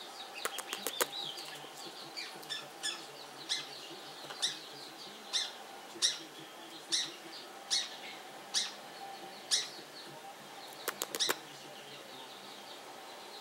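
Pacific parrotlets chirping: a run of short, sharp, high chirps about once a second, with quick rattling clusters near the start and near the end and soft chatter in between.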